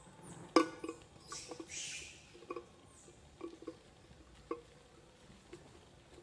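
An empty can handled by a monkey, knocking and scraping on concrete. There is a sharp knock about half a second in, then scattered light hollow taps and a brief scrape.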